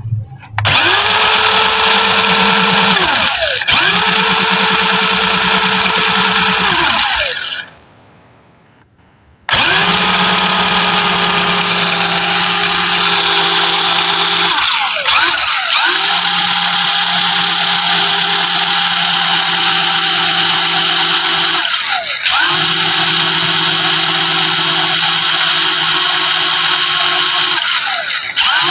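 Electric motor and gearbox of an RC crawler car whining at a steady pitch under throttle. It breaks off briefly about four times as the throttle is released, and stops for about two seconds about a quarter of the way in.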